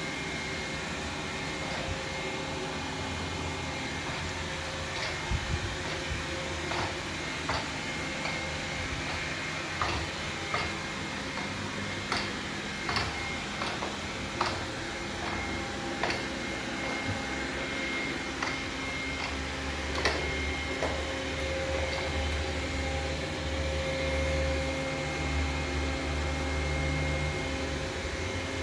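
Xiaomi Vacuum 2C robot vacuum running with a steady whir. Irregular sharp knocks and clicks are scattered through it, and a deeper hum grows stronger in the second half.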